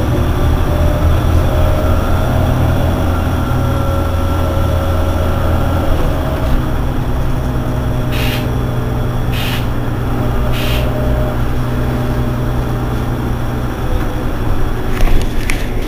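Engine of an Irisbus Citelis 18 articulated city bus idling steadily while the bus stands at a stop. Three short hisses come about a second apart around the middle, and a few sharp clicks near the end.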